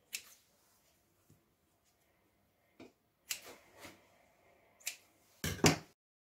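Kitchen scissors snipping through soft dough, a few sharp clicks of the blades closing. Near the end comes a louder double knock, the loudest sound here, then the sound cuts off abruptly.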